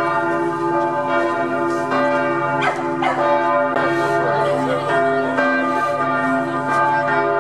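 Church bells ringing, struck again and again so that their tones overlap and hang on.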